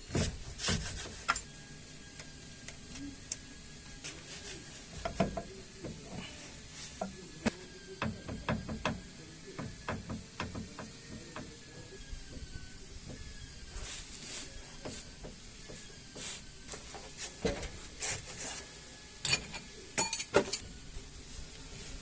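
Scattered clicks, knocks and rubbing of hand tools and metal parts being handled while a driveshaft is unbolted, over a faint steady hiss. The clatter comes in clusters, busiest a third of the way in and again near the end.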